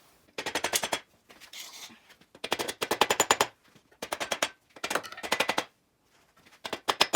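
Impact wrench hammering away at nuts on a VW Type 1 1600 engine, in five short bursts of rapid, even blows, about a dozen a second, with brief pauses between.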